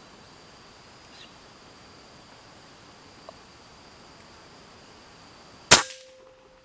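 A single air rifle shot about five and a half seconds in: one sharp crack that dies away within half a second, a head shot at a junglefowl that misses. Under it, a steady high-pitched insect drone.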